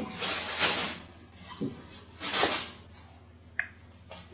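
Kitchen handling sounds as a spoon and small bowl are washed: two short rushes of hiss, the first near the start and the second about two seconds in.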